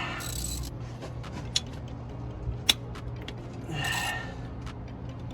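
Cylinder head bolts on a 1995 Nissan Hardbody engine being broken loose with a wrench: a drawn-out creak about four seconds in, with a few sharp metal clicks before it.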